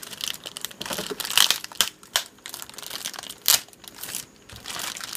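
Clear plastic wrapping around a stack of Play-Doh cans crinkling as it is handled and pulled at, in irregular crackles, the sharpest about a second and a half in and again about three and a half seconds in.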